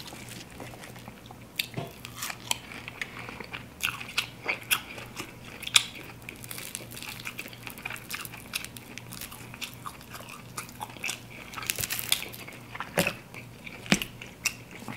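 Close-miked eating of crispy fried chicken wings: irregular crunches of the fried coating, with chewing and the wings being pulled apart by hand.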